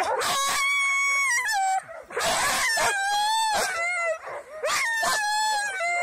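Harnessed sled dogs whining and howling: a string of long, high-pitched cries, each about a second or less, some wavering in pitch, one after another with short breaks.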